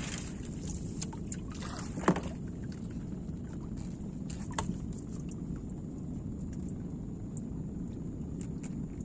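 Steady low rumble aboard a small fishing boat, with one sharp knock about two seconds in, a softer knock about two and a half seconds later, and a few faint ticks near the end.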